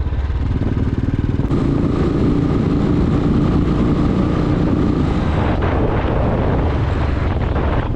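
A vehicle engine running steadily while on the move, with road noise.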